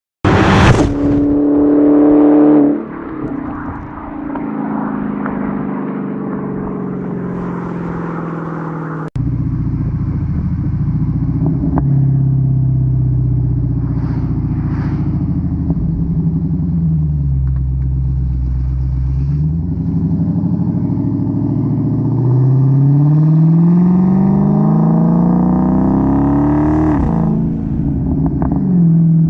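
Supercharged 6.2-litre HEMI V8 of a 2016 Dodge Challenger SRT Hellcat through its stock exhaust. It revs hard about a second in, then drops off the throttle with crackling and popping on deceleration. Later the car is driven: the engine note dips and recovers, rises in a long pull, then falls sharply off the throttle near the end.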